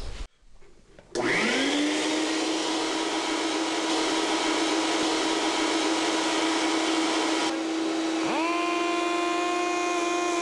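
Shop vacuum switched on about a second in, its motor spinning up to a steady loud whine as it draws grinding dust out of the cylinder head's valve pocket. Near the end an air-powered die grinder, regulated to about 12,000 RPM, spins up with a rising, then steady, higher whine over the vacuum.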